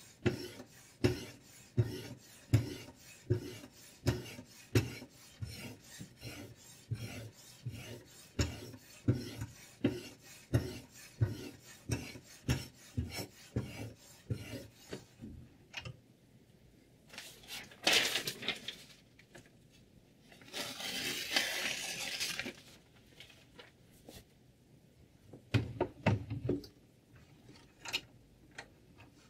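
Sharpening stone on the guide rod of a Sytools K09 knife sharpener stroked back and forth along a clamped knife blade: a rasping stroke about twice a second. The strokes stop about halfway through, followed by a couple of longer rubbing scrapes and a few knocks near the end.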